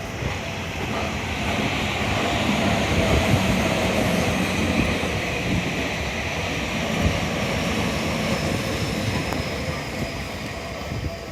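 Tokyu Toyoko Line train running through a level crossing: a rushing rumble of wheels on rails that builds over the first couple of seconds, holds, and eases near the end. The crossing's alarm bell rings over it in steady repeated strokes.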